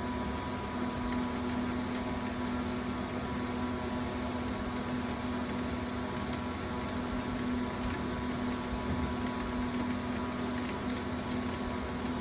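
Steady machine hum: a constant low tone with fainter higher tones over an even hiss, unchanging throughout.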